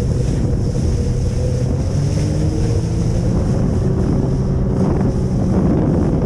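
Motorboat engine running steadily under heavy wind noise on the microphone, with water sloshing. The boat is still under power after its driver went overboard without a kill-switch lanyard.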